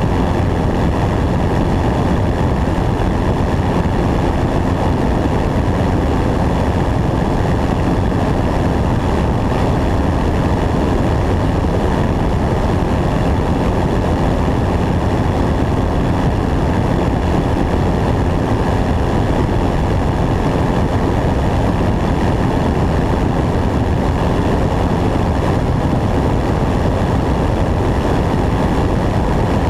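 Single-engine light airplane's engine and propeller running steadily in flight, mixed with a steady rush of wind over a camera mounted outside under the wing.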